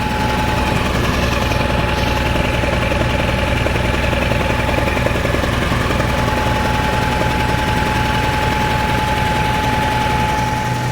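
Caterpillar 3306 inline-six natural-gas engine running steadily, with a thin steady whine over it. The engine is missing: a popping misfire on a cylinder, which the mechanic first suspects is a valve or water on the plugs.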